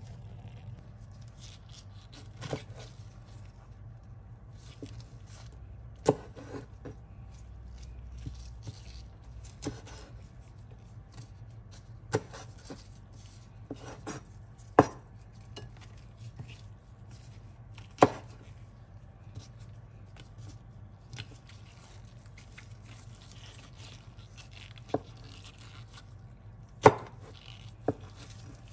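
Chef's knife cutting soaked wood ear mushrooms on a wooden cutting board: irregular knife strikes on the board every second or few seconds, a handful of them sharp and loud, over a steady low hum.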